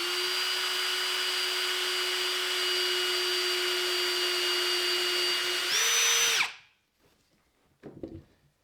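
Power drill running at steady speed, drilling a hole through an MDF template into plywood. It speeds up with a higher whine about six seconds in, then stops.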